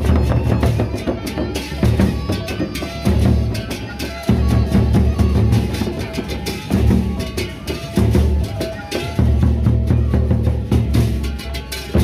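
Sasak gendang beleq ensemble playing live: large barrel drums beaten in a driving rhythm, with heavy low strokes about every second over a constant clash of hand cymbals.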